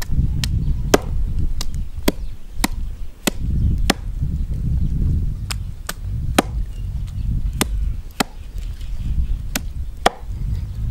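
Hammer striking food on a wooden chopping block: sharp, evenly paced knocks about twice a second, some fifteen in all, with a short pause about halfway through.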